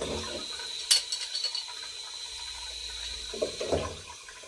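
Water hissing steadily into a toilet cistern through the ball valve, with a thin high whistle running through it. A sharp metallic clink from an adjustable spanner on the valve's locking nut about a second in, followed by a few lighter clinks.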